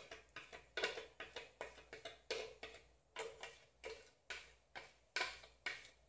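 Faint, quick knocks and scrapes of a spatula against the inside of a plastic blender jar, about two to three a second in an uneven rhythm, as thick soap batter is scraped out.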